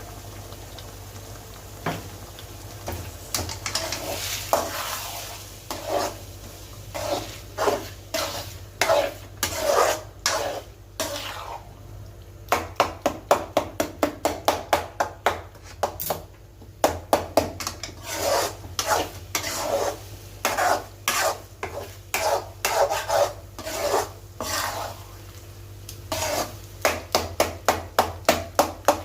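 Spatula stirring and scraping mutton brain fry in a frying pan, in runs of quick strokes at about three to four a second, over a light sizzle.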